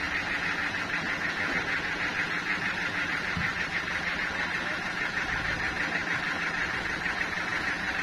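Sawmill machinery running steadily without a cut: a continuous mechanical hum with a fast, even pulsing.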